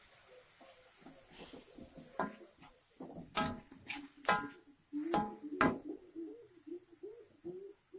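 A metal utensil knocking and clinking against a cooking pot while stirring, with about five sharp ringing knocks in the middle part and lighter clatter between them.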